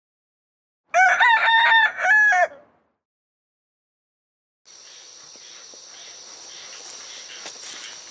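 A rooster crows once, loud, in several stepped notes with a falling end. A few seconds later a steady outdoor background begins with a constant high-pitched hum.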